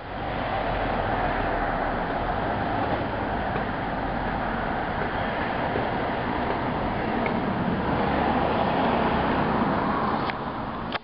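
Steady outdoor background roar, like road traffic, that swells a little near the end; the crow in view does not call.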